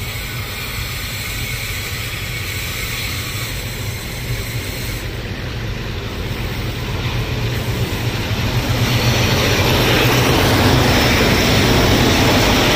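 Alco-engined 442 and 48 class diesel locomotives on an SSR ballast train, engines running with a steady low hum as they approach. The engine and wheel noise grows much louder from about two thirds of the way in as the locomotives pass close by.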